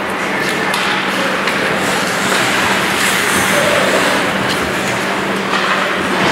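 Ice hockey arena ambience during play: a steady wash of noise from skates on the ice and the rink, over a constant low hum, with a few faint stick or puck clacks.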